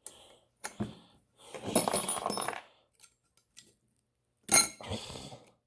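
Small metal parts of a Ford 6.0 L Powerstroke turbo's vane ring assembly clinking and rattling as they are handled by hand: a clatter about a second and a half in, and a sharp ringing clink near the end.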